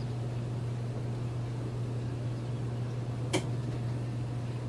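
Steady low hum over a faint even background noise, with a single sharp click a little over three seconds in.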